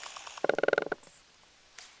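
Airsoft gun firing a short full-auto burst: a half-second run of rapid clicks, about twenty-five a second, with a buzzing tone under them.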